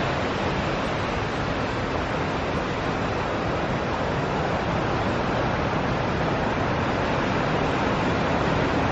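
Steady rush of ocean surf breaking on the shore, an even wash of noise with no distinct events.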